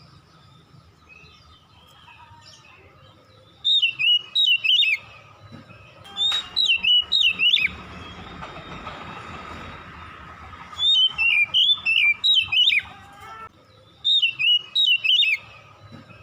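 Oriental magpie-robin singing: four loud phrases of rapid whistled notes, many sliding downward.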